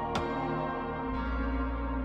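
Ambient background music: a struck, gong-like tone shortly after the start rings out over a bed of held notes.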